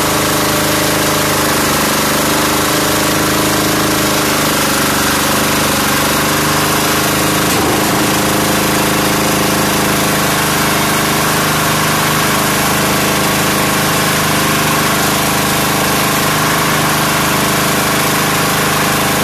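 Small single-cylinder air-cooled diesel engine running steadily at a constant speed, driving the winch of a portable construction hoist. A brief knock about eight seconds in.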